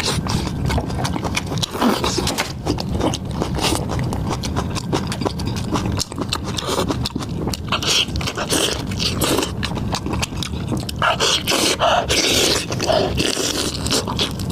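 Close-up eating sounds: chewing with wet mouth smacks and clicks, many short crackles in quick succession.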